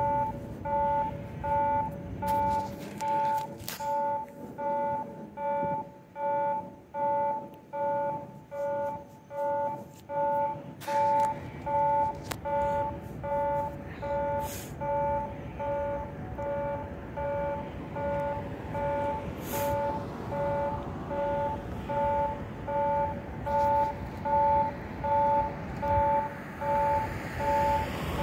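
Japanese level-crossing warning bell ringing: a two-tone electronic chime repeating evenly, about one and a half strokes a second, signalling that a train is approaching. Near the end the rumble of the approaching diesel locomotive builds under it.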